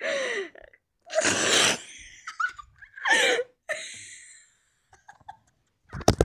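A person's short breathy bursts of laughter and coughing, one with a falling squeal about halfway through. A few sharp knocks near the end.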